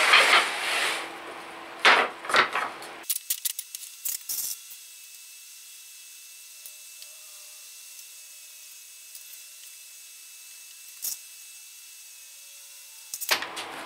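Wooden chair-seat slats scraping and knocking on a workbench, with a sharp knock about two seconds in and a short rattle of light clicks after it. Then a long stretch of faint hiss with an odd small click while loose deck screws are set into the slats by hand.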